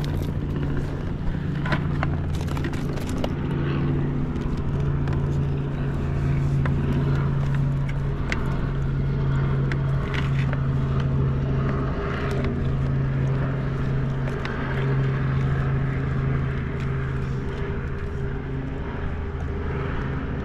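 A steady low motor drone runs throughout, with a few small clicks and rattles from the rubber landing net and hook being handled.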